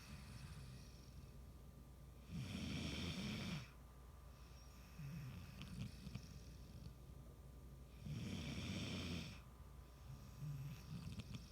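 Snoring in deep sleep: two long snores about six seconds apart, each lasting over a second, with softer breaths between them.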